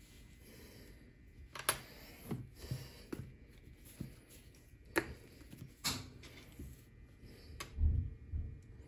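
Handling noise on a countertop: a series of light, sharp clicks and taps as a small metal weight strip is set down and a plastic glue squeeze bottle is picked up and worked, with a duller thump or two near the end.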